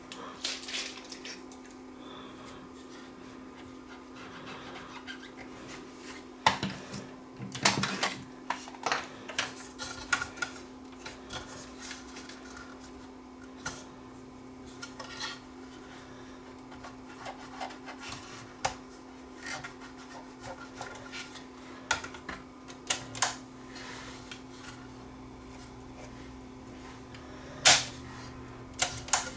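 Cotton swab scrubbing and rubbing on a cassette deck's tape head and transport parts. Irregular small clicks and taps from handling the mechanism, the sharpest about eight seconds in and near the end, over a steady low hum.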